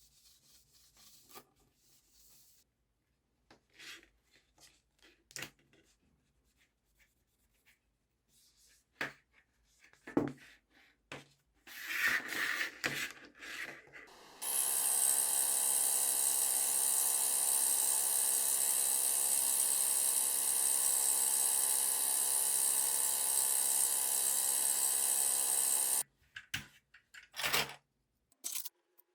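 Keyboard parts being handled, with scattered rubbing, scraping and light taps; then an electric motor runs steadily with a strong hiss for about eleven seconds and cuts off suddenly.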